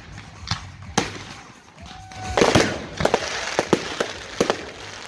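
Fireworks going off: a couple of separate bangs, then from about two seconds in a rapid string of sharp bangs and crackles.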